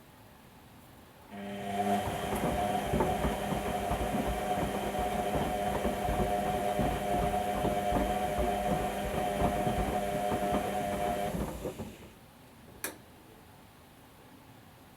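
Whirlpool Indiana 1400 washing machine turning its drum during the wash: the motor runs with a steady whine for about ten seconds while the tumbling load knocks irregularly, then it stops. A single click follows about a second later.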